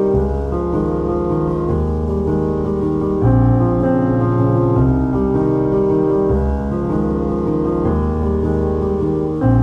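Background music: a slow piano piece, with chords changing about every second and a half.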